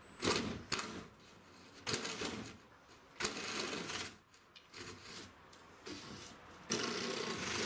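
A hand tool scraping and cutting into wood in four separate short strokes, shaving a little off the edge of a cutout.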